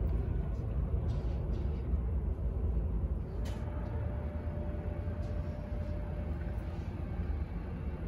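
Steady low rumble of airport noise heard from behind the terminal window glass, with a few light clicks and a faint steady tone in the middle.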